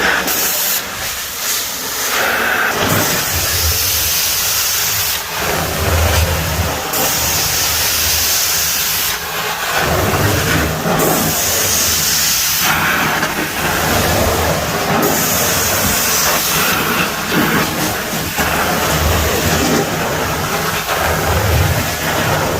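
Truckmount carpet-cleaning wand doing hot-water extraction: a hissing spray of solution in strokes about two seconds long, roughly every four seconds, over the steady rush of the vacuum suction.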